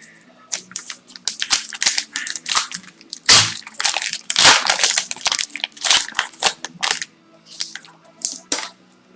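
Crinkling and tearing of a trading-card pack wrapper being ripped open and crumpled by hand: a rapid, irregular run of crackles and crunches that thins out near the end.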